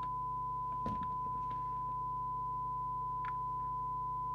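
A steady, single-pitch test tone: the signal generator's modulation tone heard through the President Walker ASC CB radio's receiver as its S-meter is set to S9 on a 100-microvolt signal. A low hum lies under it, and there is a faint click about a second in.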